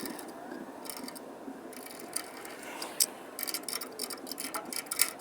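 Ratchet wrench clicking in short runs with scattered metal taps as the bolts of a replacement pull-start assembly are fastened, the clicks coming quicker and closer together in the last couple of seconds.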